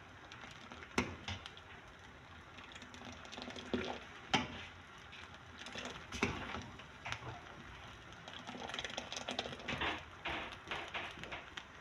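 Hot and sour soup bubbling in a pan while a spatula stirs it, with irregular knocks and scrapes of the spatula against the pan and a denser run of crackling near the end.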